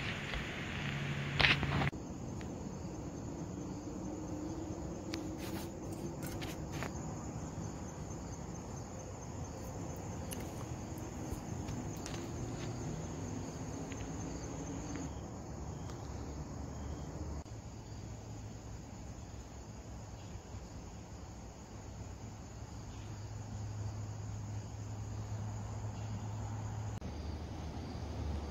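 Crickets chirring in a steady, high, even trill, with a low hum underneath. There is a brief bump in the first couple of seconds.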